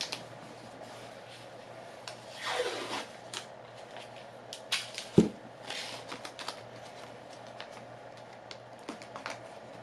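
Blue painter's tape being pulled off its roll and pressed onto a motorcycle helmet's chin: scattered small clicks and rustles, with a short rasp about two and a half seconds in and one sharp knock about five seconds in, over a faint steady hum.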